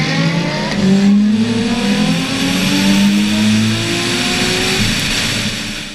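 Sports car engine accelerating hard under full throttle, shifting up about a second in and then climbing steadily in pitch through the next gear for several seconds.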